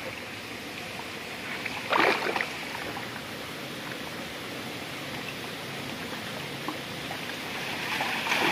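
Swollen river water flowing steadily, a continuous rushing hiss, with one short, louder burst of noise about two seconds in.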